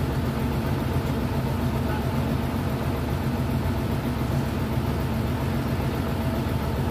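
Tadano TS-61LN truck crane's engine idling with a steady low rumble.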